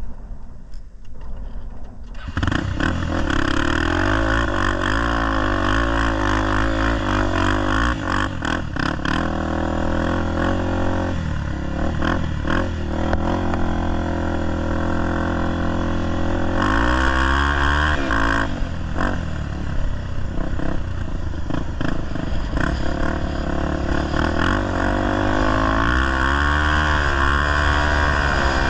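Honda XR250 Tornado single-cylinder trail bike being ridden, its engine coming in loud about two seconds in and then revving up and down.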